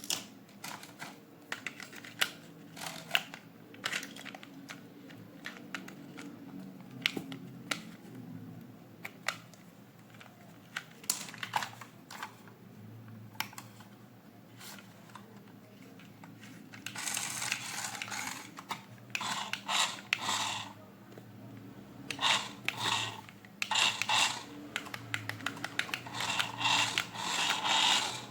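Hands handling a plastic toy and its packaging: scattered light clicks and taps through the first half, then denser bursts of rustling and scraping in the second half.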